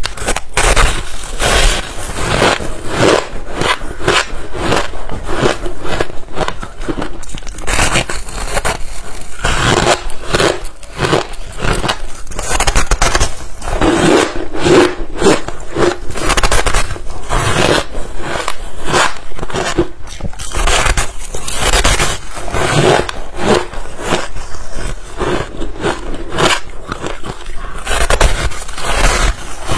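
Close-miked crunching of ice being bitten and chewed, many sharp crunches in quick succession with no break.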